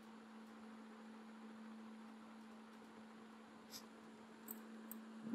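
Near silence with a steady low electrical hum, and a few faint light clicks in the last two seconds.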